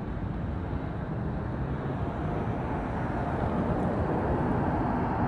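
Steady low rumble of a freight train's cars rolling past, mixed with road traffic; it grows louder over the last few seconds as cars come up the road.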